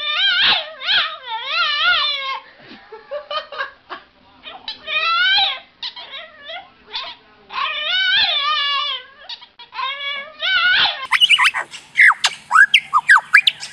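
A dog whining and howling in a run of long cries that waver up and down in pitch. About eleven seconds in, this gives way abruptly to quick high chirps.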